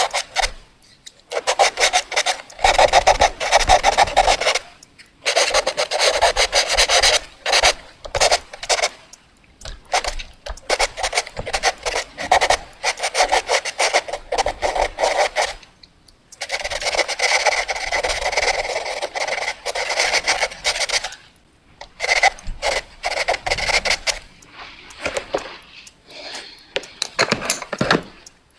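Fast drawing on paper: rapid back-and-forth scratching strokes of a drawing tool, in dense bursts of a few seconds. There are short pauses about a second in, near five, nine and a half, sixteen and twenty-one seconds, and the strokes grow lighter near the end.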